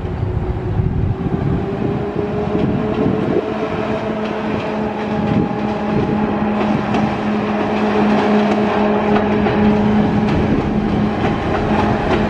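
Commuter train passing: the locomotive's engine gives a steady drone with a few held tones, over the rumble of the train and light clicking of wheels on the steel rail bridge.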